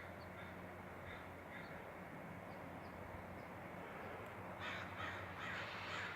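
A bird cawing: a quick run of about five harsh calls in the last second and a half, over a faint steady outdoor background.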